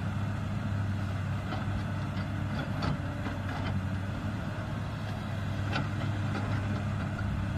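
Komatsu hydraulic crawler excavator's diesel engine running steadily as it digs soil, with a few faint clicks.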